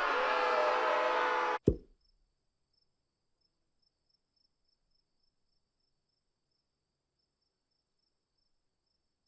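A busy background of voices cuts off abruptly about a second and a half in, followed by a single sharp knock. After that there is near silence, with only a faint high steady tone and faint regular ticking.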